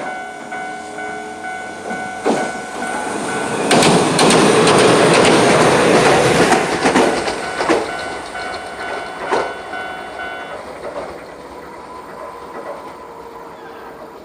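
A Hiroden tram passes over a level crossing, loudest from about four to seven seconds in, with wheel clicks over the rail joints, while the crossing's electronic warning bell rings steadily. The bell stops about ten seconds in, after the tram has gone by.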